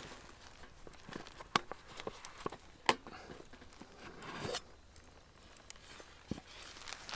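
Handling noise: scattered light clicks and rustling, with a short zip-like swish about four and a half seconds in.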